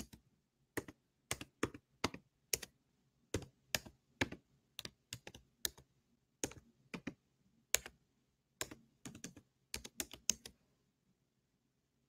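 Keys typed on a computer keyboard in irregular runs of a few strokes a second, stopping shortly before the end.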